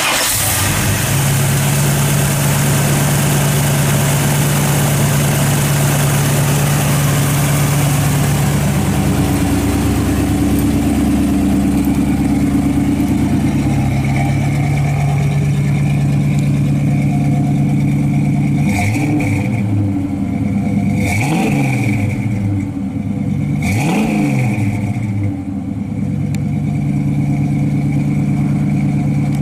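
A 350 cubic-inch small-block Chevy V8 with headers and a Flowmaster two-stage dual exhaust idling steadily. It is revved quickly three times about two-thirds of the way through, then settles back to idle.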